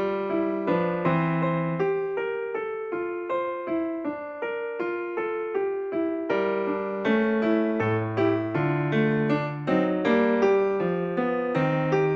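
Background music: a piano or electric piano playing a light melody over a bass line in a steady beat.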